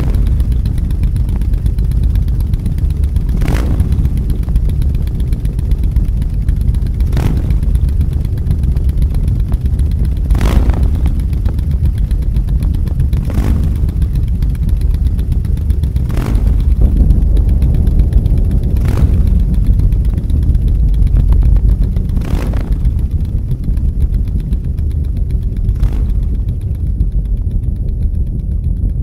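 Deep, steady engine-like rumble with a sharp hit about every three seconds.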